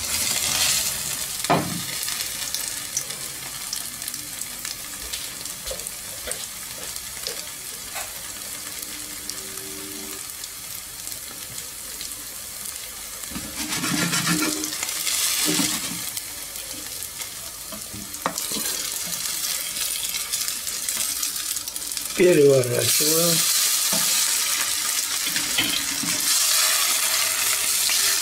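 Grated-potato rösti sizzling as it fries in vegetable oil in a nonstick frying pan: a steady hiss that swells louder a few times. About three-quarters of the way through comes a short squeaky scrape.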